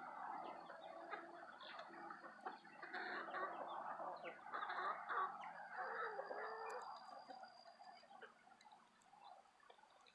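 Chickens clucking while they peck at scattered popcorn; the clucking thins out and grows fainter over the last few seconds.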